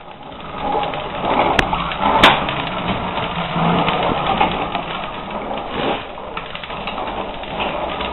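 Hard plastic wheels of a child's ride-on toy rolling across a hard floor: a steady rattling rumble, with two sharp clacks about one and a half and two seconds in.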